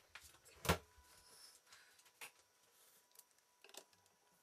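Handling noise on a wooden table: one sharp knock a little under a second in, a lighter click past two seconds, and a few faint ticks near the end.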